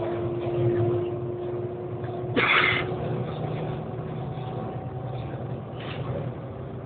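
Steady running noise of the Shanghai Maglev train heard from inside the cabin at speed: a low hum with a steady tone that fades out about three seconds in. A short loud rush of noise comes about two and a half seconds in, and a weaker one near the end.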